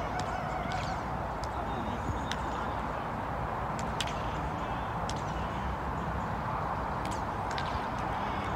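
Outdoor football pitch sound through a phone microphone: steady wind noise with distant players' shouts and a few short, sharp knocks.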